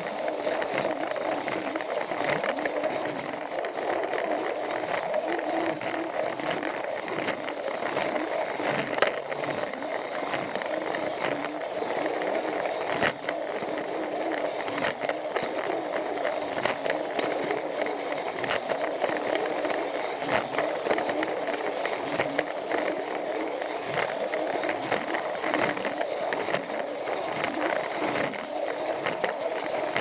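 Plarail toy train's small battery motor and gearbox whirring steadily as it runs along plastic track, heard close up, with frequent irregular clicks and rattles from the wheels passing rail joints.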